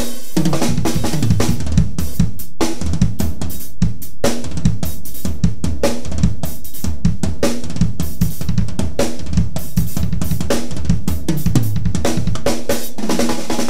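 Acoustic drum kit played in a busy, continuous pattern: bass drum, snare, hi-hat and cymbals struck in quick succession without a break.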